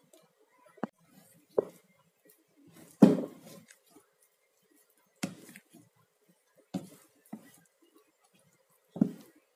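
Scattered knocks and clatters of kitchen utensils and dishes being handled, about seven separate hits, the loudest about three seconds in.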